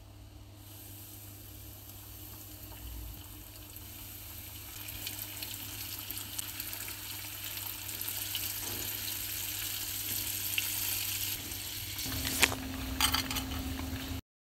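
Flour-coated chicken pieces deep-frying in a pan of hot oil: a steady sizzle with small crackles that grows gradually louder. Two sharp clicks near the end, and the sound cuts off abruptly just before the end.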